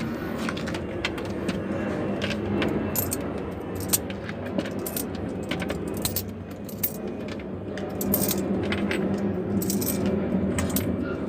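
Loose coins clinking and jingling against each other and against metal, in many scattered sharp clinks over a steady low hum.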